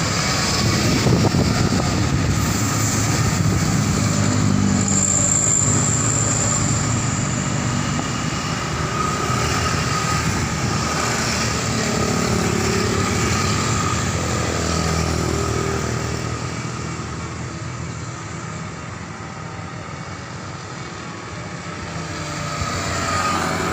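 Tour buses driving past one after another, their diesel engines running loud and steady. The noise fades for a few seconds past the middle and builds again near the end as another bus comes by.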